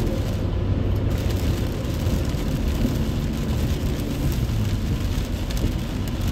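Steady rain falling, with a low rumble of road traffic underneath and faint scattered drop ticks.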